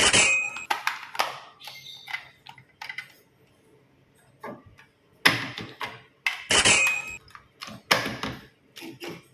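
Toy trains clattering and knocking as they are handled: irregular clicks, knocks and short scrapes with quiet gaps between, the loudest near the start and again in a cluster a little past halfway.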